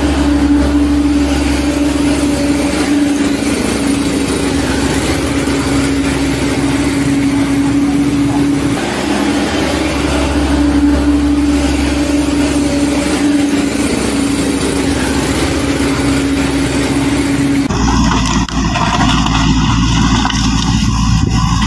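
Steady truck engine running with a constant hum, an engine sound laid over plastic toy trucks that have no motors. About eighteen seconds in it cuts off abruptly and music with guitar and drums takes over.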